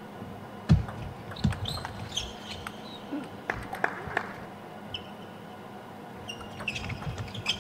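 Table tennis doubles rally: a plastic ball clicking sharply off rubber-faced rackets and the table, with a couple of heavier thumps from footwork and short high squeaks of shoes on the court floor. After a short lull, fresh clicks near the end as the next point is served.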